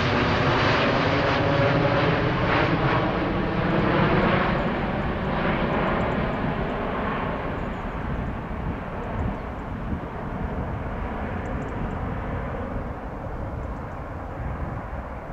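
Twin-engine Boeing 787 airliner's jet engines at climb power as it passes overhead and recedes after takeoff. The rumble is loud at first, with a steady whine of tones on top, then fades and grows duller as the hiss drops away.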